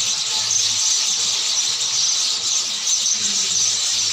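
A flock of sparrows chirping continuously, many calls overlapping into a dense, high-pitched chatter.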